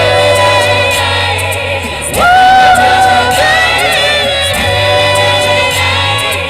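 Buskers singing long held notes in harmony, with no clear words, over a steady low accompaniment. A louder new phrase comes in about two seconds in.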